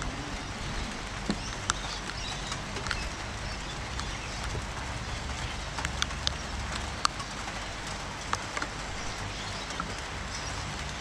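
Steady rain falling, with scattered sharp taps of drops striking close to the microphone.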